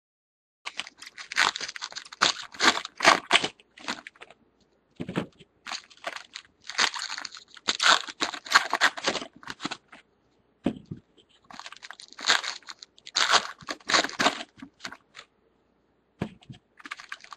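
Foil trading-card pack wrappers crinkling and tearing as packs of 2013 Topps baseball cards are opened by hand, in four bursts of crackling separated by short pauses.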